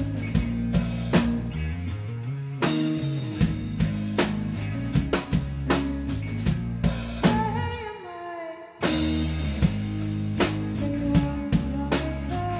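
Indie rock band playing an instrumental passage: drum kit with snare, toms and cymbals over bass and electric guitars. A little past the middle the drums and bass drop out for about a second, leaving a few held guitar notes, then the full band comes back in at once.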